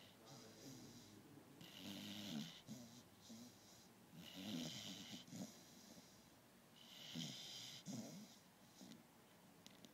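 A sleeping beagle snoring faintly: three rasping snores, each with a hiss, coming about every two and a half to three seconds.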